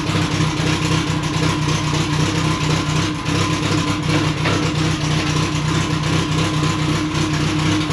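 Turbocharged 4G63 engine running steadily in drive with the car on stands, turning the drivetrain and driveline so the rear differential can be checked by ear for damage after a hard launch.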